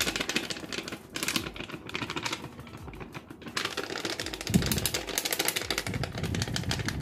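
Ground spice being shaken and tapped out of a paper sachet onto fish: a rapid dry patter of ticks, in several spells with short breaks about a second and three seconds in.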